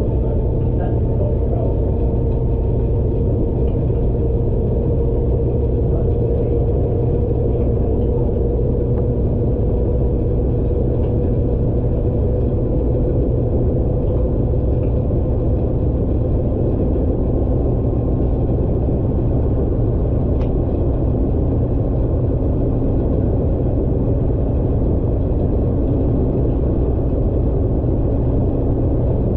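Washing machine in its high-speed spin at the end of the cycle: a steady, loud rumble with a faint steady motor whine.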